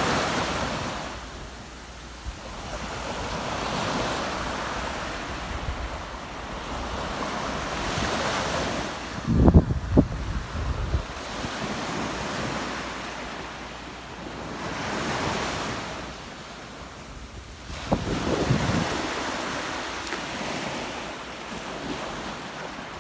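Ocean waves breaking and washing up the shore, swelling and fading every few seconds. Wind buffets the microphone in low rumbles about ten seconds in and again later on.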